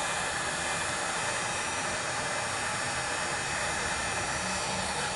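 Electric heat gun blowing steadily, a constant even whoosh, held on vinyl wrap to heat-shrink a ripple out of it.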